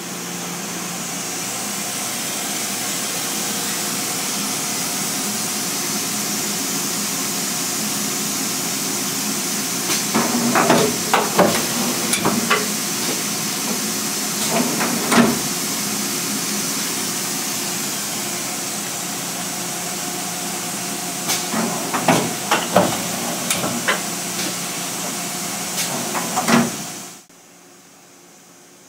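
Makino S56 vertical machining center's high-speed spindle (rated 20,000 rpm) running with a steady hiss and high whine, building up just after the start. Bursts of sharp clicks and knocks come in twice, and the machine sound cuts off suddenly near the end.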